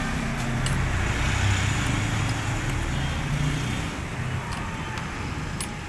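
Road traffic noise: a steady low rumble of passing vehicles, with a couple of faint clicks near the end.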